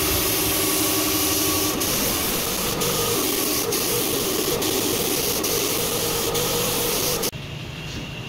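Air-fed gravity spray gun hissing steadily as it sprays primer onto a steel bonnet panel, stopping abruptly about seven seconds in.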